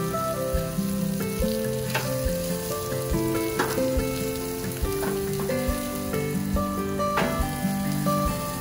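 Ribs sizzling on a gas grill, an even hiss with a few sharp pops, under background music with changing notes and a low beat.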